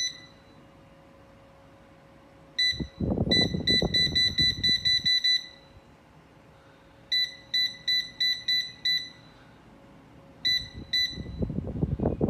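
Air fryer's touch-control panel beeping at each button press as the timer is set: single short high beeps, then quick runs of about eight and about seven as the minutes are stepped up, then two more near the end. A low muffled noise comes twice, under the first run and near the end.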